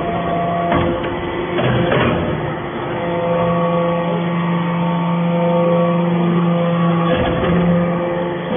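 Copper chips briquetting machine running, a steady machine hum with several sharp clunks in the first two seconds and another about seven seconds in.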